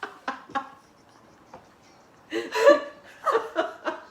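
Two women's voices: short laughing syllables in the first half second, then, after a brief lull, a run of quiet unclear words and more laughing syllables over the last two seconds.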